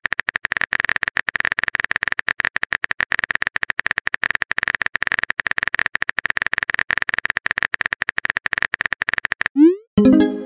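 Rapid, even run of electronic typing clicks, a chat-app typing sound effect, that stops near the end. It is followed by a short rising blip and a brief pitched chime as the message pops up.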